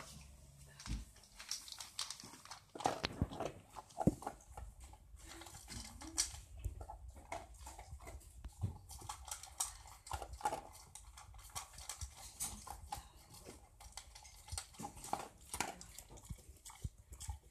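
Old English sheepdog eating from a stainless steel bowl: irregular chewing and crunching with clicks and clinks against the metal, a couple of louder knocks about three and four seconds in.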